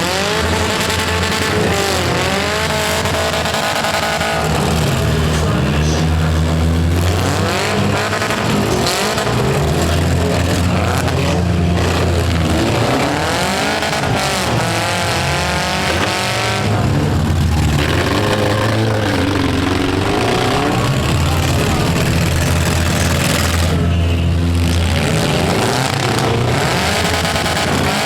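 Several four-cylinder demolition derby car engines revving up and down at once, their pitches overlapping and rising and falling repeatedly.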